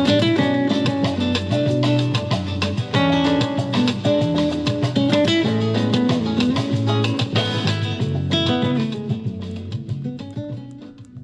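Guitar-led music with a Latin feel played through the small GBL Go 4 Bluetooth speaker as a sound test, with plucked guitar notes over a bass line; the music fades out near the end.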